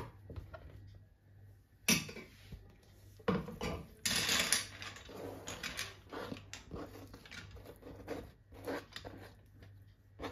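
Plastic cutting board knocking and scraping against a ceramic baking dish as diced ham is pushed off it: irregular clicks and knocks, with a longer scrape about four seconds in.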